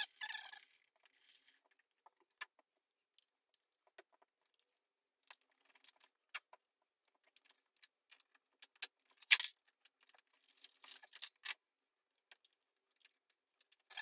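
Sparse, faint metallic clicks and clinks of hand tools: pliers working a clip and small parts being handled. There is one sharper click about nine seconds in, followed by a short cluster of small clicks.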